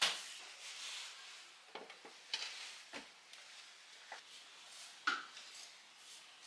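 Curtain fabric rustling, with scattered sharp clicks and knocks as the curtain and rod hardware and a wooden step stool are handled. The sharpest click comes right at the start, with another strong one about five seconds in.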